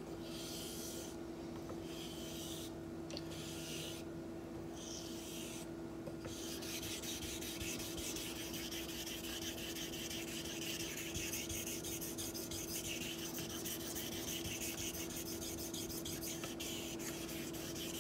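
Straight razor with a taped spine being honed on a wet green whetstone: gritty scraping strokes, separate and about a second apart at first, then quicker, continuous strokes from about six seconds in. The edge was dulled on purpose, and these strokes are grinding a fresh bevel.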